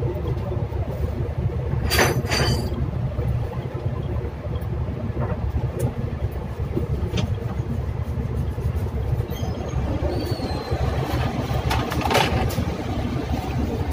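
Steady low machinery drone, with a short burst of louder noise about two seconds in and another near the end.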